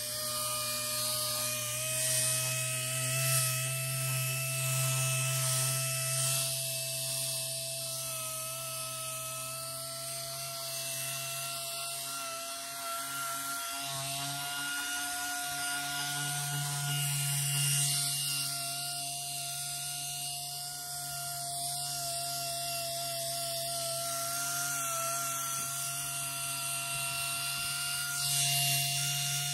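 Small high-speed power tool running steadily: a whining motor whose pitch wavers slightly as it works, with a hiss over it.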